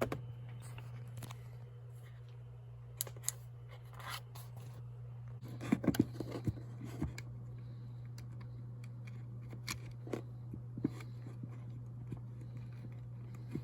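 Scattered light clicks and scrapes of small plastic parts being handled, with a cluster of sharper clicks about six seconds in, over a steady low electrical hum.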